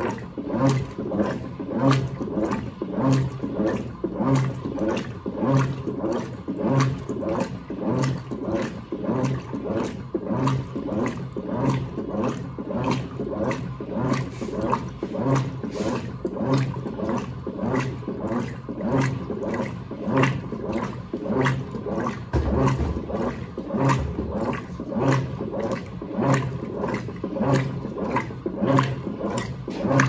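Electrolux Turbo AquaJet LTA15 direct-drive top-loading washing machine agitating a full load of sheets and towels in water: the motor drives the agitator back and forth in a steady rhythm of about one stroke a second, with water churning.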